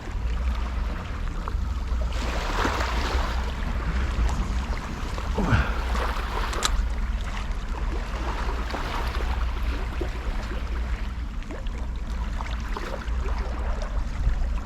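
Outdoor seaside ambience: water washing and splashing over a steady low rumble of wind on the microphone, with a brief falling squeal about five and a half seconds in.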